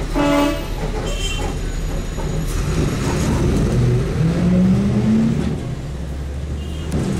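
Overland truck's engine running with road noise, heard from inside the cab. The engine note rises slowly about four seconds in; a short pitched tone sounds near the start.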